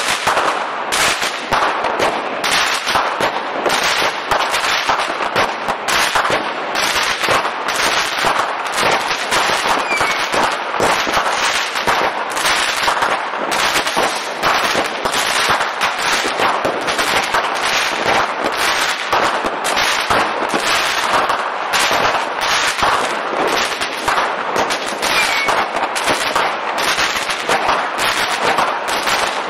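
Aerial fireworks going off in a near-continuous volley: rapid bangs and crackling, several reports a second, with no real pause.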